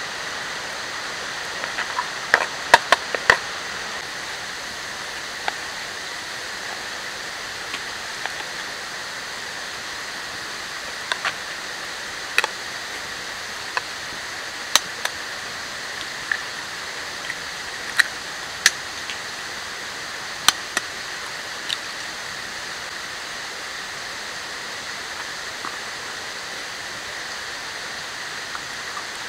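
A steady hiss of water runs throughout. Scattered sharp clicks and taps stand out above it, with a quick cluster a couple of seconds in and then single taps every second or two: a knife cutting food against a small plastic plate.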